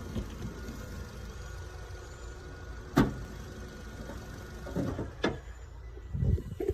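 A sharp knock about three seconds in, then a few softer thumps, over a low steady rumble.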